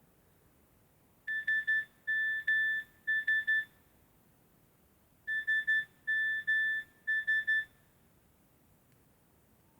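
A Nokia 6233 mobile phone playing a beeping alert tone: short and longer beeps on one high pitch, with the same pattern sounding twice.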